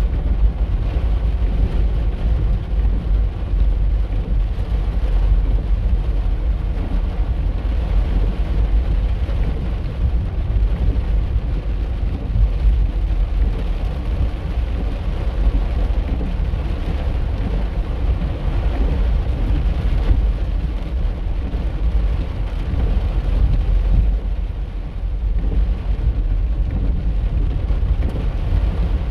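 Car driving on wet streets in heavy rain, heard from inside the cabin: a steady low rumble of engine and tyres with rain on the car.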